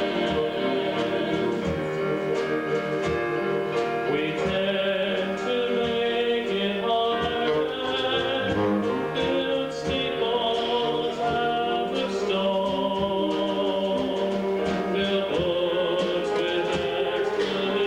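A vocal group singing a song in harmony, with several voices sounding together over musical backing.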